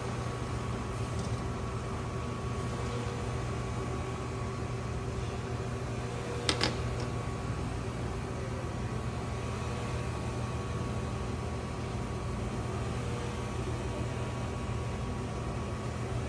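Microwave oven running with a steady hum, with one sharp click about six and a half seconds in.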